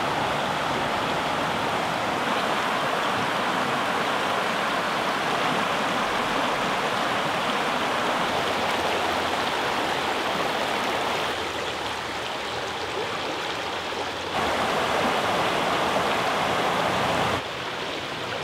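Shallow creek water rushing and babbling over rocks in riffles, a steady flow. Its loudness drops and rises abruptly a few times, about 11, 14 and 17 seconds in.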